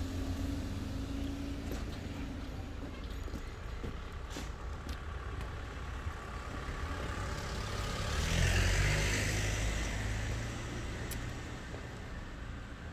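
Car engines running on a street, with a steady low rumble throughout. About two-thirds of the way through, a car drives past, growing louder and then fading.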